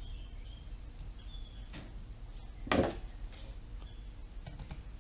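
A few light clicks and taps of a screw and screwdriver against the plastic battery housing of a Dyson V6 stick vacuum, as the battery's retaining screw is put back in. The sharpest click comes a little under three seconds in.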